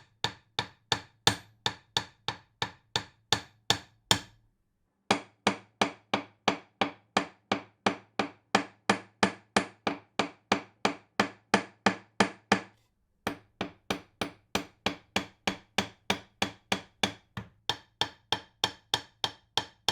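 A hammer striking repeatedly at a steady pace, about three blows a second, each hit ringing briefly. The blows pause twice for under a second, at about four seconds in and again near thirteen seconds.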